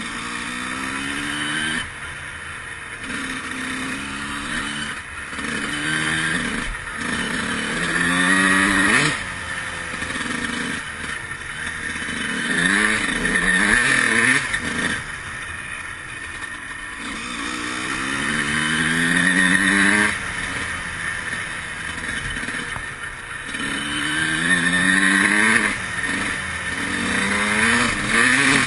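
Honda CR125 two-stroke single-cylinder motocross engine under riding load, its pitch repeatedly climbing as it revs up and then dropping as the throttle comes off, several times over.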